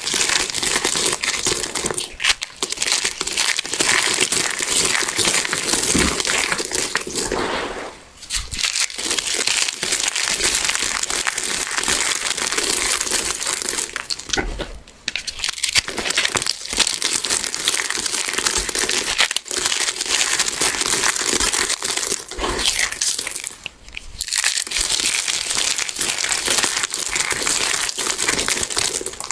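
Hands crushing blocks of crunchy soap, a dense continuous crackling crunch broken by three short pauses.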